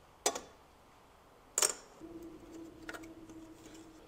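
Two sharp clicks about a second and a half apart as parts are handled in a car's engine bay, then a few faint ticks over a faint steady hum.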